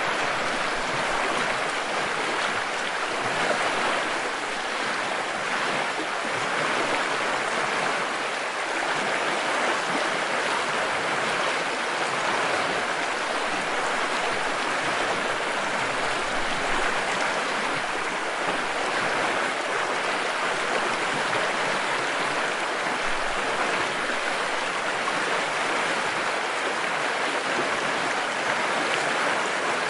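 Stream water flowing steadily over rocks, a continuous even rushing and splashing without pauses.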